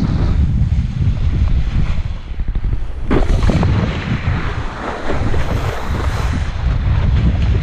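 Wind buffeting a kitesurfer's action-camera microphone, over the rush of water and spray from the board cutting through choppy water. About three seconds in there is a sudden louder rush of spray.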